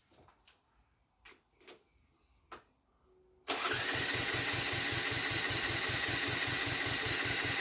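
A few faint knocks, then about three and a half seconds in the Honda ST50's small single-cylinder four-stroke engine fires and keeps running with a steady, even fast beat: it has just started for the first time after its rebuild.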